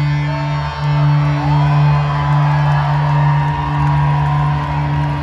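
Live hard-rock band sustaining a loud low droning note, with a high note sliding up and held over it, and scattered crowd whoops.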